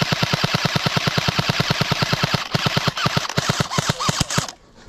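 Airsoft gun firing on full auto: a long, fast, even string of shots, then a few short bursts, stopping about four and a half seconds in.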